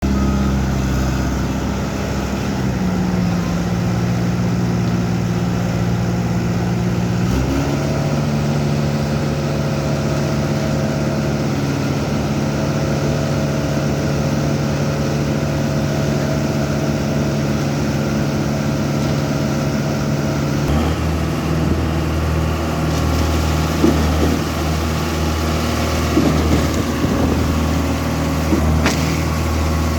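Engine of an SLM 4600 self-loading concrete mixer running steadily, its note shifting in pitch a few times as the engine speed changes. Some light knocks and clanks come in over the last several seconds.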